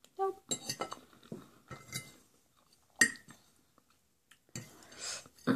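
A metal fork clinking and scraping on a dinner plate while food is scooped up, with a sharp clink about three seconds in, amid soft chewing and mouth sounds.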